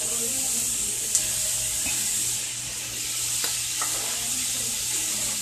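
Onions and red peppers sizzling steadily as they sauté in a pot, with a few light clicks.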